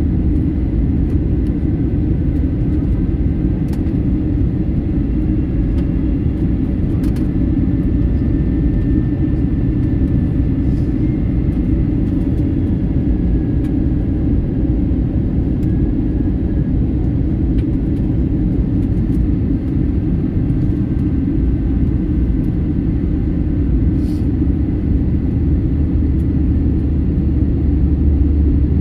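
Steady low rumble of an airliner's engines and the air rushing past, heard inside the passenger cabin while the plane descends, with a faint high whine over it.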